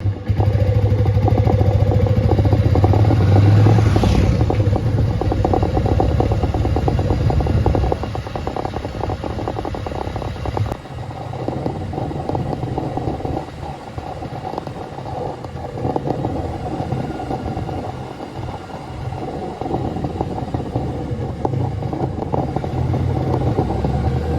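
Vehicle engine running with road rumble and clatter while driving on a rough road. The sound drops in level about eight seconds in and changes abruptly a few seconds later.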